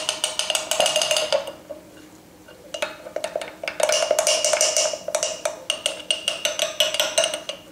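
A spoon stirring a flour-and-water paste in a glass mason jar: quick, rapid clinks of the spoon against the glass, with the jar ringing. The stirring pauses for about a second, beginning about a second and a half in, then resumes and runs until near the end. This is the mixing of a fresh sourdough starter.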